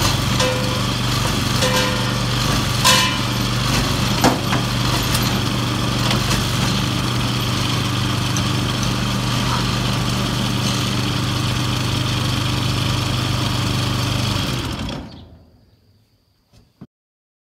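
Small engine on a homemade noise-making machine running steadily, with a few metallic clanks that ring briefly in the first five seconds. About fifteen seconds in the engine shuts off and runs down to silence, followed by a single click.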